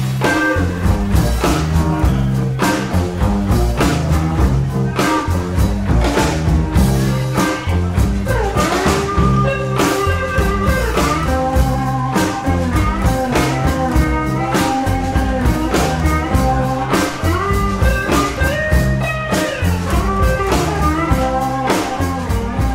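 Live instrumental blues from a trio: electric guitar playing lead lines with bent, sliding notes over upright double bass and a drum kit keeping a steady beat with cymbals.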